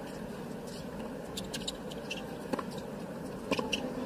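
Tennis rally: the ball struck by rackets and bouncing on the hard court, sharp pops at the start and again about two and a half and three and a half seconds in, with sneakers squeaking on the court and a low crowd murmur underneath.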